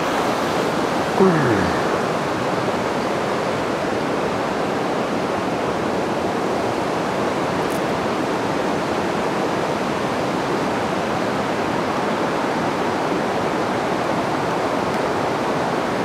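Steady rushing of river water through the whole stretch, with a short falling tone about a second in.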